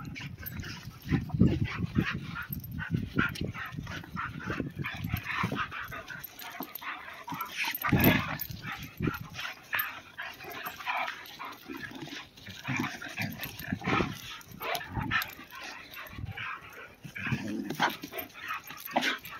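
Several huskies play-fighting, giving short, irregular barks and yips as they wrestle; the loudest calls come about eight seconds in and again near fourteen seconds.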